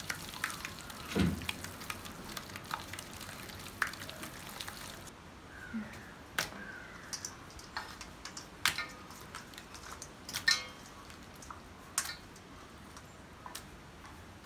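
Hands mixing raw quail and spice marinade in a stainless steel bowl: soft wet squishing with scattered light clicks and taps against the steel.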